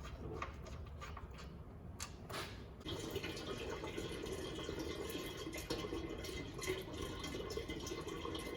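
Old engine oil draining from the oil pan of an LS V8 into a drain pan, a steady pouring stream that gets louder about three seconds in.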